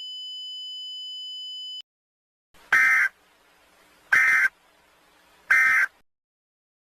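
Emergency Alert System end-of-message signal: three short, identical bursts of warbling SAME data tones, each under half a second and about a second and a half apart. Before them a faint steady high tone that cuts off about two seconds in.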